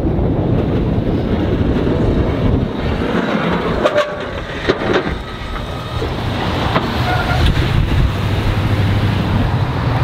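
Ford Super Duty pickup with a BOSS DXT V-plow pushing snow: engine running and the blade scraping and knocking over the pavement, under a heavy wind rumble on the microphone.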